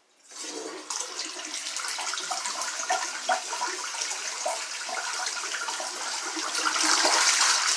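A 1996 toilet flushing: water rushes from the tank into the bowl, starting suddenly a moment in and getting louder near the end as the bowl siphons once.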